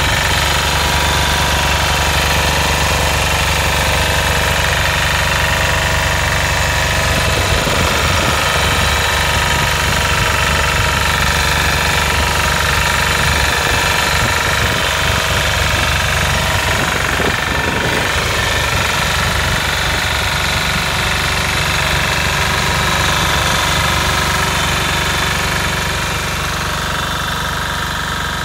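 Air-cooled Lombardini diesel engine of a trailer-mounted traffic arrow board running steadily, a little quieter near the end.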